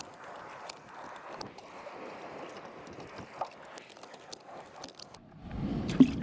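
Steady rush of spillway water with scattered small clicks. Near the end a louder low rumble comes in, with one sharp knock just before the end.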